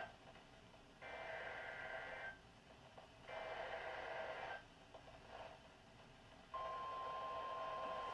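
Weather radio playing an Emergency Alert System alert: two buzzy bursts of data tones, each about a second long and a second apart, from the SAME header. About two seconds later the steady single-pitched 1050 Hz warning alarm tone starts and holds.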